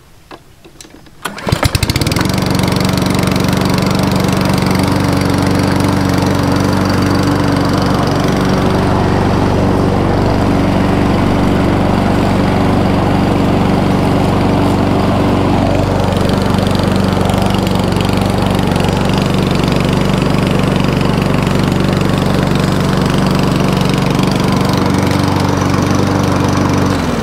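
Daewoo 139cc four-stroke petrol lawn mower pull-started about a second and a half in, catching at once and running steadily. The engine winds down near the end.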